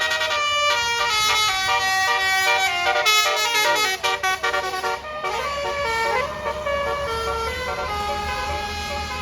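Indonesian bus 'telolet basuri' multi-trumpet musical air horn playing a fast melody of quickly changing notes, with gliding siren-like notes around the middle. A low rumble underneath grows from about halfway through.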